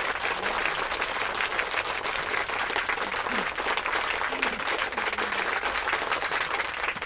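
Dense applause from a crowd, many hands clapping at once, steady and loud.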